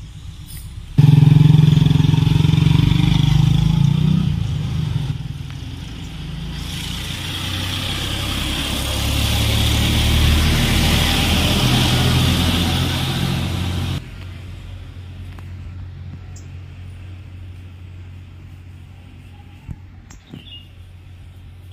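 A motor vehicle engine running close by: it comes in suddenly about a second in, eases off, swells again, then cuts off abruptly a little past halfway.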